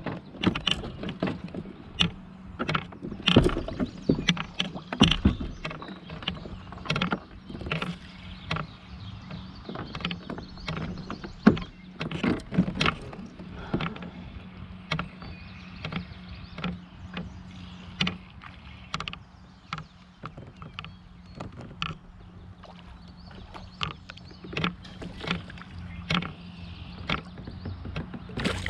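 Repeated knocks, taps and splashes from a fishing kayak and the gear in it being handled on the water, thickest in the first few seconds, over a steady low hum.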